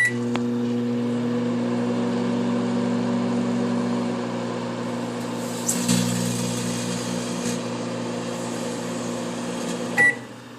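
Microwave oven starting with a beep and running with a steady hum; about six seconds in a burst of crackling, the halved grape arcing into plasma. The oven beeps and the hum stops near the end.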